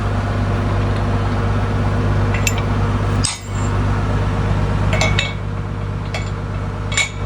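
Tractor engine idling steadily, with several short sharp metal clinks as pins are pulled out by hand.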